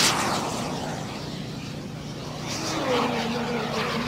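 Radio-controlled model jet flying past: its loud, high rushing noise fades away over the first second or so. From about two and a half seconds in, a lower hum slowly falls in pitch.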